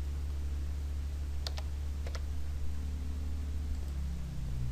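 A few keystrokes on a computer keyboard, close together about one and a half and two seconds in, over a steady low hum.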